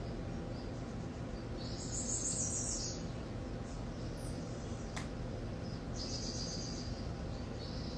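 Birds chirping in short high bursts, each about a second long, over a steady low background hum, with a single sharp click about five seconds in.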